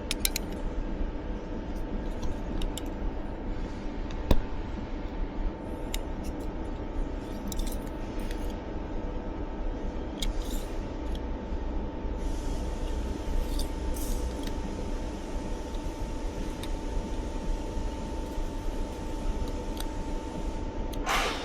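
Steady machine-shop hum with a constant tone, under scattered small clicks and taps of a machined metal part being handled and measured. One sharp click comes about four seconds in, and a brief scrape near the end.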